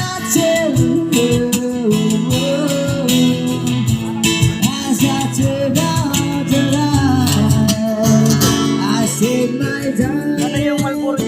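Guitar-led music playing steadily, with a melody line that slides between notes.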